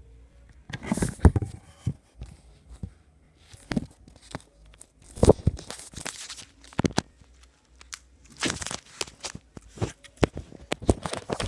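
Stiff, hard slime being stretched fast and ripping apart, in a string of irregular noisy bursts.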